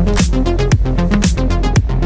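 Electronic dance music with a kick drum about twice a second under a stepping bass line and bright hi-hat-like hits between the beats.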